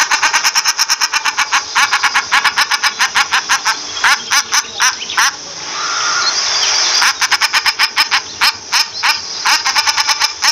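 Common shelduck calling: a fast run of short, sharp, repeated call notes, about eight a second. The run breaks off for a second or two a little past the middle, then resumes.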